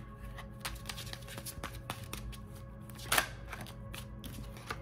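A deck of reading cards being handled and drawn: a run of light clicks and card snaps, with one louder snap about three seconds in.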